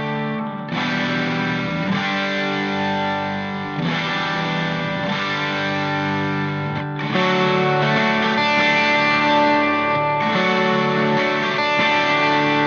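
Music: held, distorted electric guitar chords that change about every three seconds.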